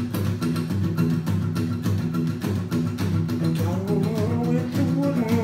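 Acoustic guitar strummed in a steady rhythm, playing a song's intro. A wavering, voice-like tune joins over the strumming for about the last two seconds.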